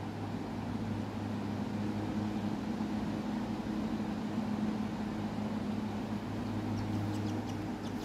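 Steady low mechanical hum over a light hiss. In the last second a few faint high peeps, from the black downy chick being hand-fed.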